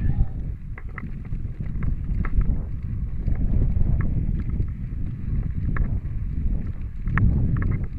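Wind buffeting an action camera's microphone over the rumble of a Scott Spark 10 full-suspension mountain bike rolling fast along a dirt singletrack, with scattered clicks and rattles from the bike.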